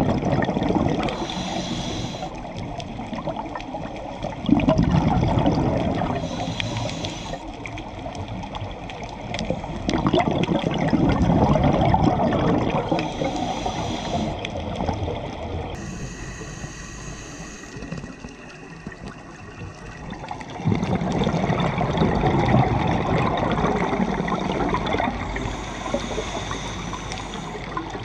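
Scuba diver breathing through a regulator underwater: a short hiss on each inhale about every six seconds, followed by a longer, louder rush of exhaled bubbles.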